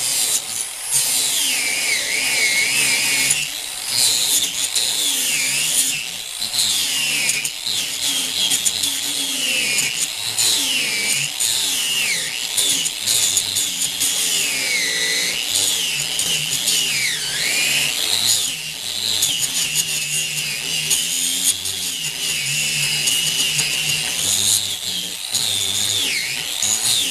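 Angle grinder cutting through seized steel T-nuts from the back of a wooden cart bed. Its steady high whine dips in pitch again and again as the disc bites under load, then climbs back as it eases off.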